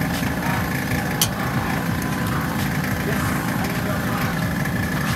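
A steady, low engine-like rumble of machinery running, under indistinct background chatter, with one short click about a second in.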